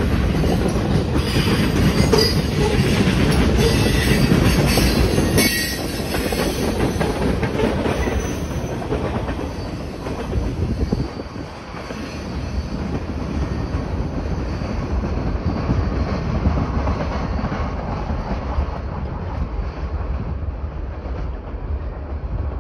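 Freight train cars rolling past close by on steel rails, with high wheel squeal, until the end of the train passes about five seconds in. The rumble then fades as the train moves away.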